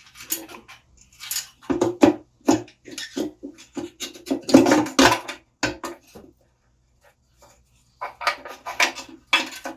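Irregular metal clanks, knocks and scrapes as the ignition coil of a small motorcycle is worked loose and pulled out of its frame, with a short quiet pause about six seconds in.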